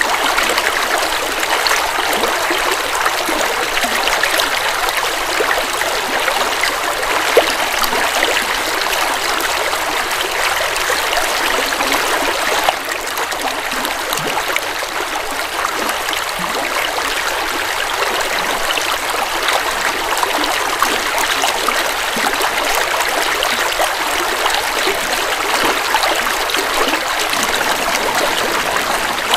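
River water flowing steadily, a constant rushing and trickling of water. It dips slightly in loudness about halfway through, then builds back.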